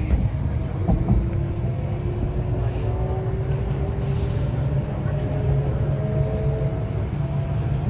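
MTR East Rail Line R-Train, a Hyundai Rotem electric multiple unit, picking up speed: the traction motors whine with a slowly rising pitch over a steady low running rumble. Two short knocks come about a second in.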